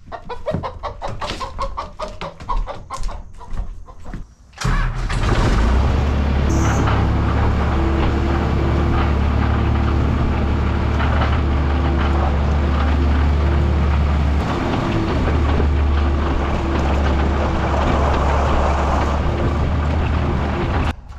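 Chickens clucking, then the skid steer's engine starts about four and a half seconds in and runs steadily with a low, even drone. It cuts off just before the end. It is running after repair of a no-start electrical fault.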